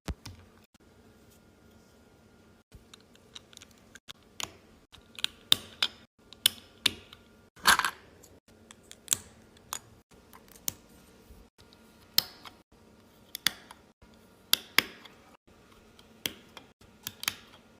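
Plastic Lego bricks clicking and snapping together while a small Lego fidget toy is built by hand: irregular sharp clicks, starting a couple of seconds in, some louder than others.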